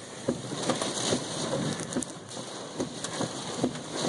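Hailstones between nickel and quarter size pelting a car in a heavy storm: a dense hiss of rain and wind with many sharp, irregular knocks several times a second. Heard from inside the car with the driver's window open.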